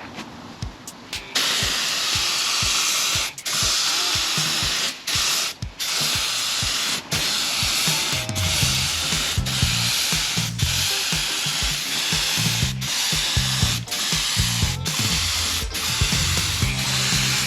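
Paint spray gun hissing as it sprays a coat of clear lacquer, starting about a second in and cut off briefly several times as the trigger is released. Background music with low bass notes comes in partway through.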